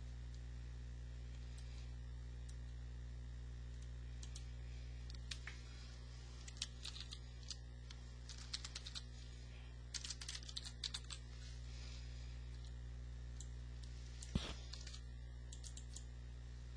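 Computer keyboard typing in short flurries of keystrokes, with one louder, sharper knock near the end, over a steady low hum.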